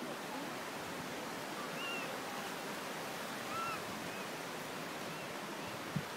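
Steady rushing water of a nearby waterfall and stream, with a few short, arched chirping calls over it and a soft thump near the end.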